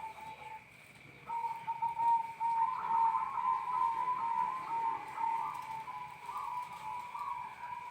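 Zebra dove (perkutut) cooing: a run of rapid, pulsed notes that breaks off briefly about a second in, then carries on.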